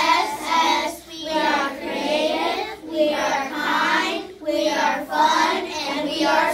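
A group of children's voices in unison, chanting the school mission statement ('We are creative, we are kind, we are fun, and we are smart') phrase by phrase, with short breaks between the lines.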